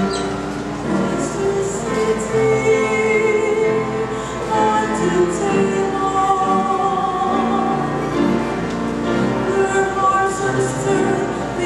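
Mixed choir of men's and women's voices singing in parts, moving between held chords.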